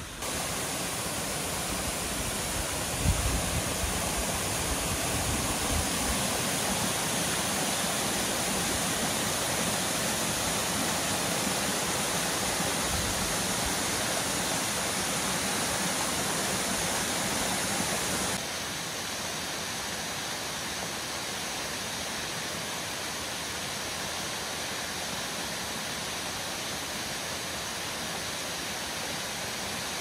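Yamabiko Falls, a tall waterfall dropping down a rock cliff onto rocks, giving a steady rushing hiss of falling water. A few low bumps come about three seconds in, and the rush drops slightly in level about two-thirds of the way through.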